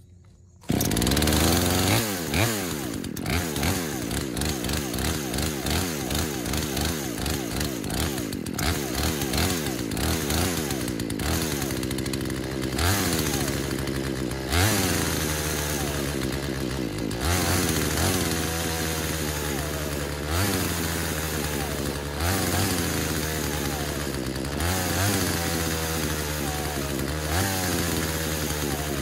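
Craftsman two-stroke chainsaw catching about a second in and then running, its engine speed surging and dropping back every couple of seconds. The low-speed mixture screw is being turned to find the highest idle RPM on a carburettor that needs adjusting.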